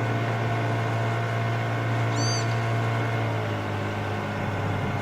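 A steady low drone throughout, with one short, high, arching bird call about two seconds in.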